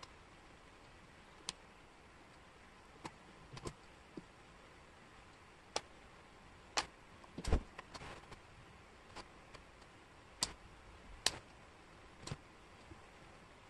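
Wooden jigsaw puzzle pieces clicking and tapping against each other and the table as they are picked up and fitted, about a dozen irregular sharp clicks, with one duller knock about halfway through.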